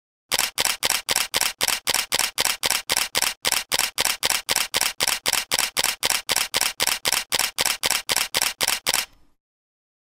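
Camera shutter firing in continuous burst mode, a rapid, even run of about three and a half clicks a second that stops abruptly near the end.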